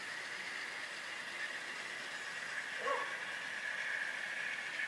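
OO gauge model trains running on an outdoor garden layout: a steady running hiss from the locomotives and coaches on the track. There is a short chirp about three seconds in.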